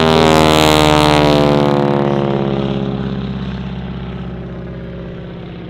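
Boeing Stearman N2S-4 Kaydet biplane's radial engine and propeller passing by in flight, loudest about half a second in, then the pitch sliding down and the sound fading steadily as it flies away.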